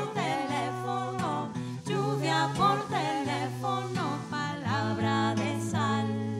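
Women singing, several voices layered in harmony, with gliding, wordless-sounding lines over long, steady low instrumental notes.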